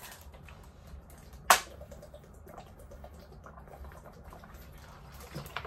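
Quiet room tone with a low steady hum, broken by a single sharp click about one and a half seconds in.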